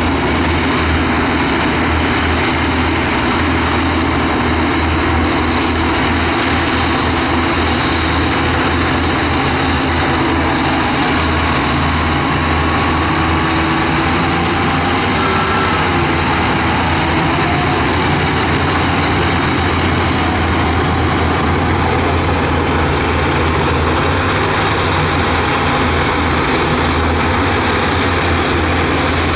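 Heavy earthmoving machine's diesel engine running steadily under load, a continuous low rumble, with a brief faint whine about halfway through.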